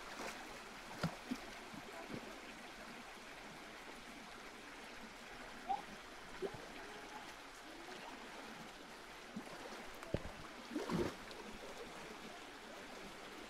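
Steady faint rush of running water, with a few brief knocks scattered through and a short, louder sound about eleven seconds in.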